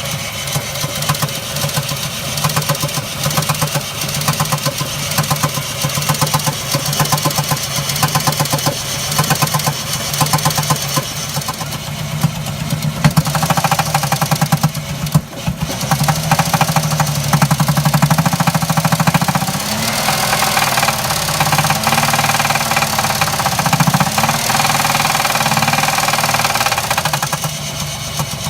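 Jeep Liberty 3.7-litre V6 running with a rhythmic, repeating knock from a failing connecting-rod bearing: rod knock. It gets louder around the middle and is revved up and down a few times in the second half.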